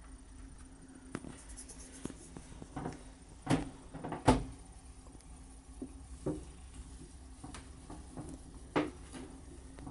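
A few sharp knocks and bumps at irregular intervals, the loudest about four seconds in, over a steady low hum.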